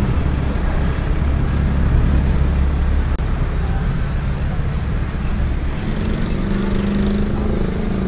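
Street traffic: motor vehicle engines running close by over a steady urban din. A low engine rumble fades about three seconds in, and a steadier engine hum comes in near the end.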